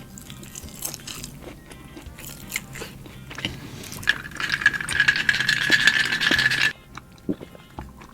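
Close-miked eating of a burger: bites and crunchy chewing over soft background music. From about four seconds in, a louder dense crackling with a steady high tone runs for under three seconds and cuts off suddenly.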